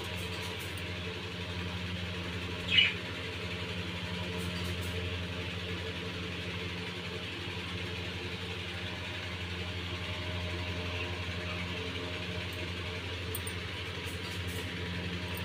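Steady motor hum, like a fan or appliance motor running. A brief sharp sound stands out about three seconds in.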